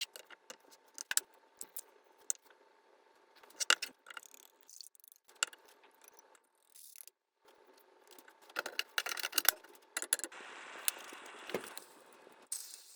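Kitchen utensils clinking and knocking against dishes and cookware in sharp scattered clicks, with a flurry of quick strikes about two-thirds in, then a steady hiss lasting about two seconds near the end.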